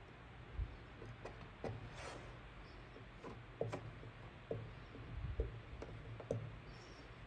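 Irregular light clicks and taps, with a short soft scrape about two seconds in, from a heated plastic-repair tool working over the cracked plastic of a kids' ATV body panel.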